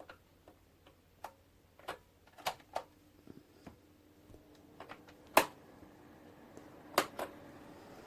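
Irregular sharp clicks and knocks, as of a plastic object being handled, the loudest about five and a half and seven seconds in. A faint steady hum comes in about three seconds in and steps up in pitch just after a click near the end.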